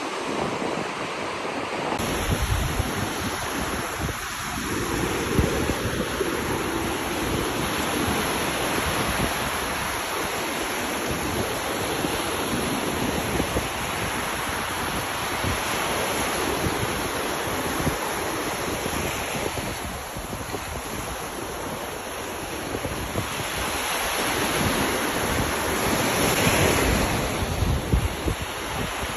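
Ocean surf washing onto a beach, a continuous rush of breaking waves that swells louder near the end, with wind buffeting the microphone.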